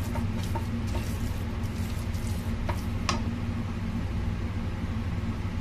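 Plastic spatula stirring and scraping a thick grated-radish and rice-flour batter in a wok, heard as a few soft scrapes and clicks over a steady low hum.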